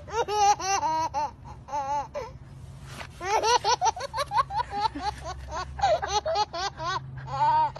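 A woman and a toddler laughing: high-pitched laughs in quick repeated bursts, a short run, a brief pause about two seconds in, then a longer run.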